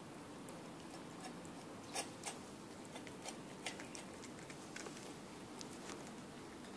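Cat eating from a stainless steel bowl of wet food and dry kibble: small, irregular clicks of chewing and licking, with a couple of louder clicks about two seconds in.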